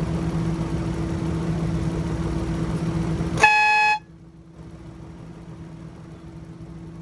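Aftermarket air train horn, with only one of its horns connected, giving a single short blast of about half a second, around three and a half seconds in. A loud steady mechanical drone runs up to the blast and drops away right after it, leaving a fainter drone.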